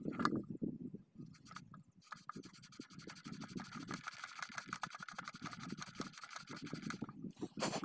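Rapid scratching as the copper slip rings of a center pivot irrigation collector head are rubbed clean by hand, running from about two seconds in to about seven seconds in. Low handling rustle sits around it, and there is a sharp click near the end.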